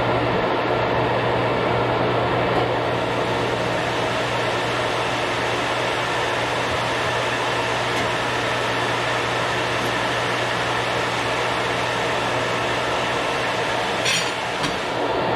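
Bandsaw mill running steadily with a constant hum, its blade cutting through a log. Near the end the hum changes and a short rattle is heard.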